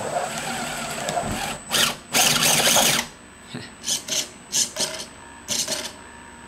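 The small electric motors of an RC crawler chassis whirring as it is driven from the transmitter. There is a longer run over the first three seconds, loudest about two seconds in, then several short blips.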